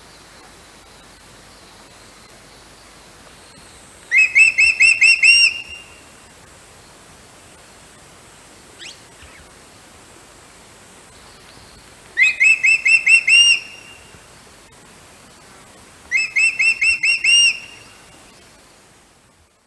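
A bird calling: three loud phrases of six or seven quick, clear, whistled notes each, about five notes a second, a few seconds apart.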